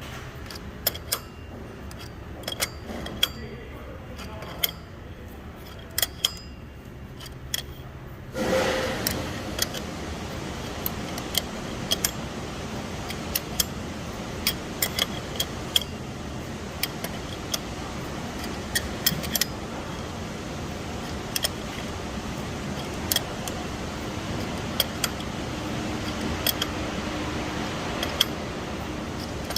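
Intermittent metallic clicks and clinks of a crescent wrench turning a draw-through pulley installer tool, pressing the pulley onto a Ford 5.4 3V power steering pump shaft. About eight seconds in, a steady hissing noise starts and runs on underneath.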